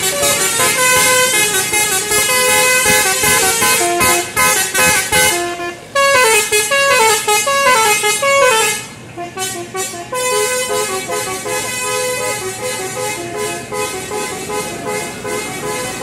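Tour bus telolet (basuri) multi-tone horn playing a tune of stepping notes, with a fast run of quick notes about six seconds in.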